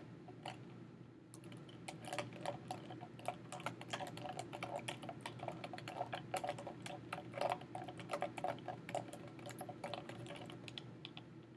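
Ice chunks clinking and knocking inside a nested foam cup as the ice water is stirred, a quick, irregular run of small ticks.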